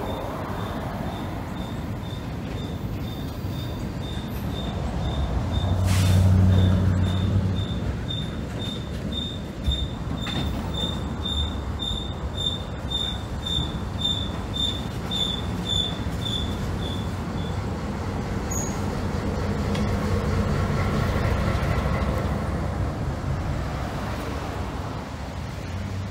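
Slow freight train rolling past: a continuous rumble of steel wheels on rail, with a high squeal repeating about twice a second from the cars' wheels that stops about two-thirds of the way through. Near the end the diesel engine of the trailing EMD MP15DC switcher locomotive can be heard as it passes.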